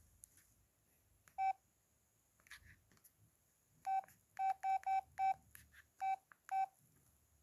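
Samsung flip phone's keypad tones as its buttons are pressed: eight short beeps, all of the same pitch. One comes alone about a second and a half in, then seven in a quick run a few seconds later.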